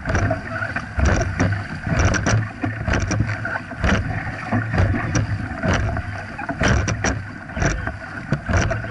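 Dragon boat crew paddling in unison: paddle blades catching and splashing about once a second, with water rushing past the hull between strokes.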